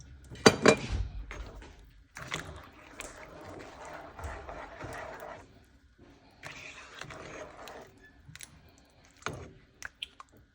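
Kitchen handling sounds at the stove: a sharp clink about half a second in, then stretches of scraping or stirring noise and a few light clicks near the end.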